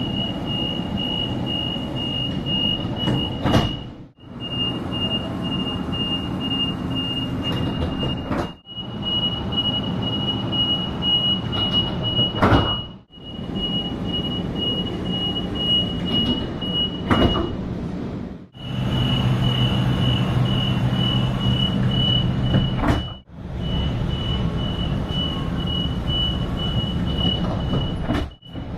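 Sliding passenger doors of a Sydney double-deck train, heard from inside the carriage in a run of short clips: a steady high tone sounds over the train's hum, and the doors shut with a sharp knock several times.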